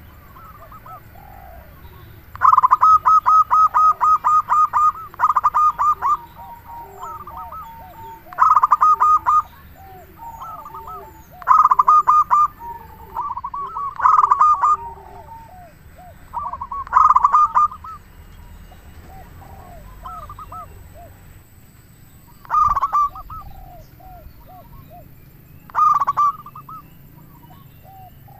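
Zebra dove (perkutut) singing: loud bursts of rapid, repeated staccato coos every few seconds, with softer, lower coos in between.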